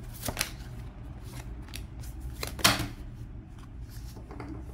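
A deck of oracle cards being shuffled by hand: a few soft rustles and slides of card on card, the loudest a little under three seconds in, over a steady low hum.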